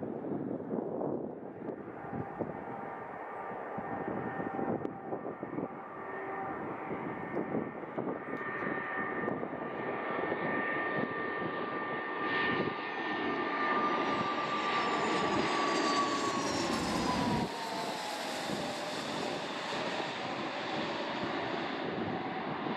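Gulfstream business jet's twin rear-mounted turbofans whining on final approach, growing louder as the jet nears and passes overhead, then the whine falls in pitch as it goes by. Wind gusts on the microphone underneath.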